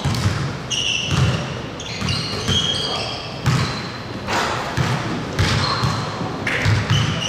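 Basketball game play on a gym court: a ball bouncing in irregular thuds, with many short, high sneaker squeaks on the floor, echoing in the hall.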